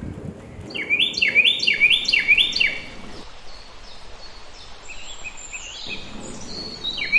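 A songbird singing a quick phrase of repeated whistled notes, about two a second, in two runs with a pause between, where other birds chirp softly, over a steady outdoor background hiss.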